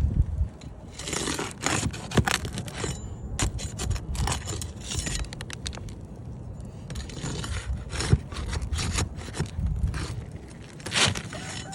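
Irregular scraping and sharp clicks of hand tools working on roof shingles during a shingle repair.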